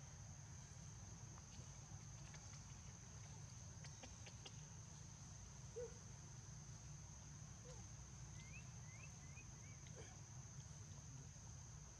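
Near-silent ambience with a faint, steady, high-pitched insect drone. A few soft clicks come in the first half, and a quick run of four faint chirps comes about two-thirds of the way through.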